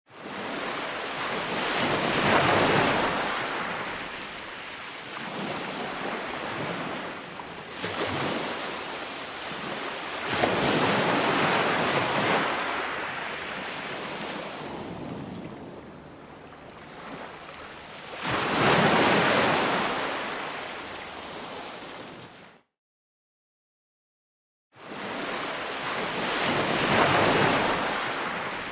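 Ocean waves breaking, each wave a rushing surge that builds and fades, one about every eight seconds. The sound cuts out to dead silence for about two seconds, then resumes with the next wave.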